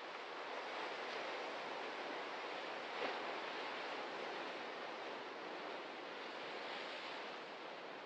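Ocean surf washing in, a steady rush of waves that swells early on and eases off toward the end. One brief sharp crack is heard about three seconds in.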